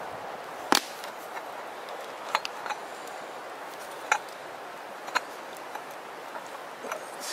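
Wood campfire crackling: irregular sharp pops and snaps over a steady hiss, the loudest pop about a second in.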